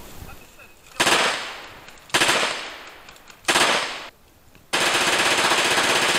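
Airsoft submachine-gun replica firing on full auto: three short rattling bursts about a second apart, then a longer burst of about two seconds near the end.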